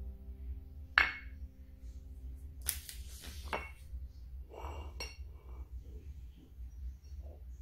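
Small Studio M' ceramic plates clinking as they are handled and set down on a wooden floor: about five sharp clinks with a short ring, the loudest about a second in.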